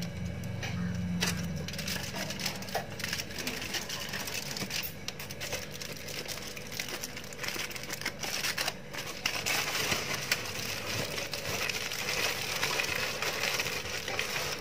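Aluminium foil crinkling and crackling as hands roll and wrap it tightly around a rolled sponge cake, the crinkling growing denser in the second half.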